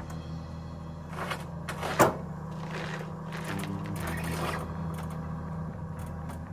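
A few short knocks and rustles of things being handled, with one sharp clunk about two seconds in, over a steady low hum.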